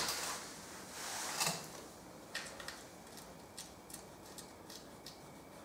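Handling noises of a steel oil pan being held against the engine block and seated on its studs: a brief scrape and rustle at the start and again about a second and a half in, then scattered small clicks and taps.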